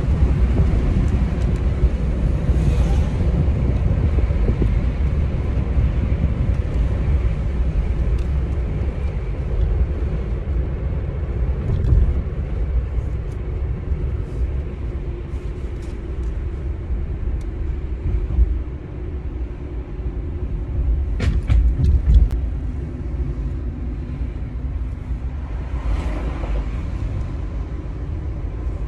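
Road noise inside a moving car's cabin: a steady low rumble, with a few brief clicks about three quarters of the way through.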